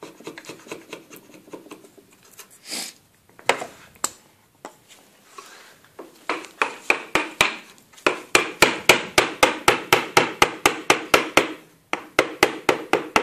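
Mallet tapping a wooden-handled bench chisel in quick light strikes, chopping out the waste of a joint in a wooden frame. A few scattered taps come first, then a steady run of about five taps a second from about six seconds in, with a short break near the end.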